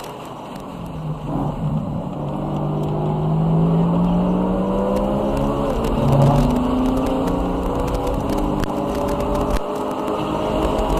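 BMW E92 M3's V8 engine pulling hard, its note rising steadily as it accelerates. It drops sharply on an upshift about six seconds in, then climbs again.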